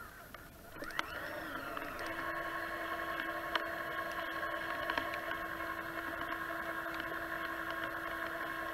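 Small electric winch motor on a Traxxas Summit RC truck whining as it runs: the pitch rises about a second in and holds steady from about two seconds on, with a few light clicks.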